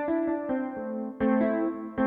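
Roland XP-10 synthesizer playing one of its factory preset sounds in a keyboard tone. Chords and notes are struck and held, with a new chord about half a second in and a louder one just after a second.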